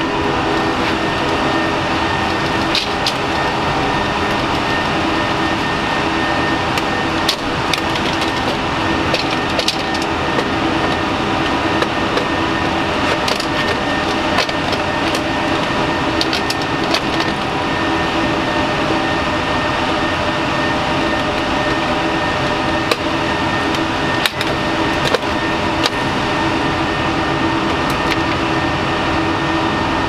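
Steady whirr of many rack servers' cooling fans, holding several fixed tones. Scattered metallic clicks and clunks come from the heavy IBM x3850 X5 server chassis as it is worked onto its steel slide rails.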